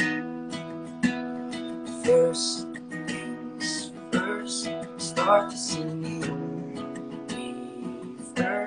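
Acoustic guitar being strummed and picked as accompaniment, with a man's voice singing short phrases over it.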